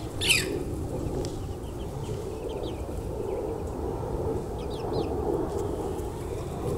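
Small birds chirping: one loud, sharp chirp just after the start, then scattered short faint chirps, over steady low background noise.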